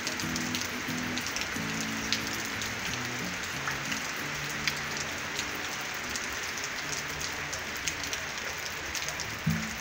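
Heavy rain falling on wet paved ground: a steady hiss with scattered sharp splashes of single drops. Faint low tones come and go underneath.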